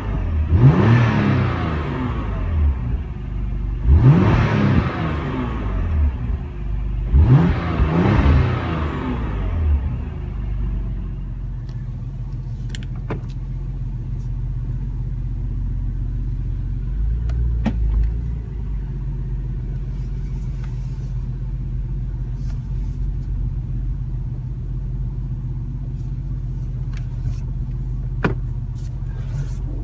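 2016 Porsche Macan Turbo's twin-turbo V6, heard from inside the cabin, revved three times while standing still, each rev rising sharply and falling back over about two seconds, then idling steadily. A few faint clicks come later on.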